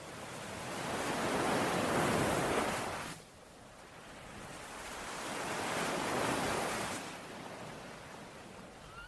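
Ocean waves washing in twice, each swelling over about three seconds and then dropping off suddenly.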